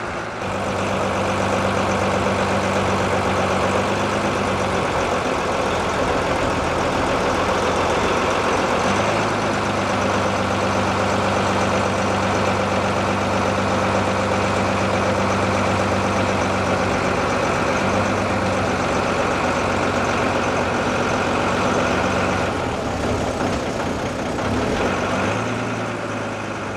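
Small river ferry boat's engine running steadily under way, with water and wind rushing past. Near the end the engine note drops and changes as the boat slows to come in to the landing.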